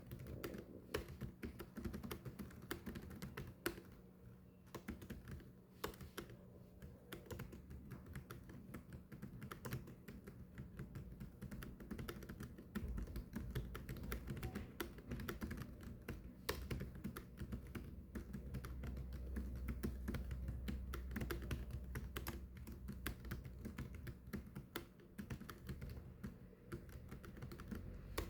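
Continuous typing on a keyboard: a fast, irregular run of key clicks over a faint low hum.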